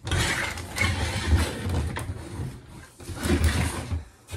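Plastic toy wardrobe playset being handled: its hinged panels and swing-out doll stand moved and angled, with rubbing, rattling and a few light knocks of plastic.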